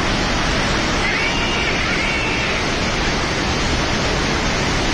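Steady, loud rush of a flash-flood torrent of muddy water pouring down a mountain channel.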